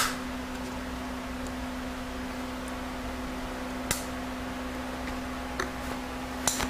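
A few short metallic clicks of snap-ring pliers working a snap ring on an automatic transmission clutch drum, the loudest right at the start, over a steady hum.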